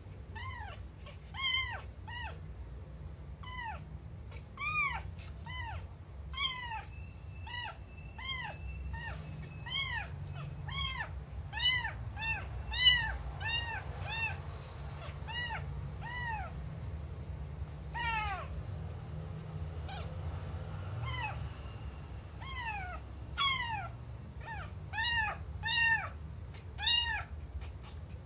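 Young kitten meowing over and over: short, high-pitched calls, one or two a second, with a short lull around the middle.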